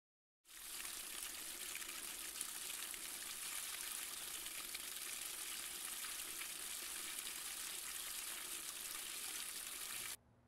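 Steady hiss of running water that starts about half a second in and cuts off abruptly just before the end.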